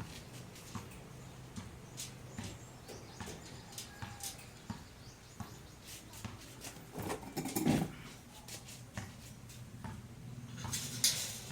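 Scattered light clicks and taps of rack parts and bolts being handled during assembly, with louder clatters about seven seconds in and near the end.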